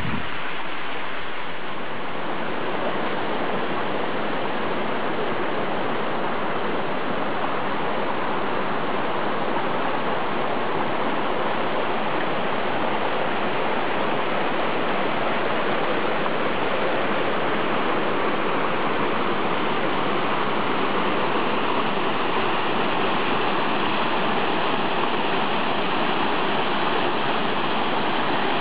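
Rudický potok, a small karst stream, rushing and tumbling over limestone rocks in a small cascade: a steady, even rush of running water.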